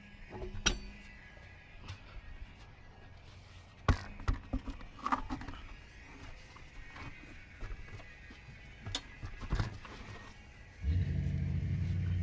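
Scattered clicks and knocks of tools and brake parts being handled. Near the end comes a steady low hum lasting about a second and a half.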